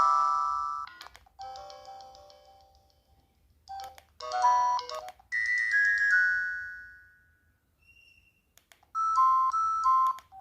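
ZTE X175 mobile phone playing several short electronic ringtone melodies one after another: a rising run, two brief tunes, a falling chime that fades out, and quick repeated beeps near the end, with short clicks between them.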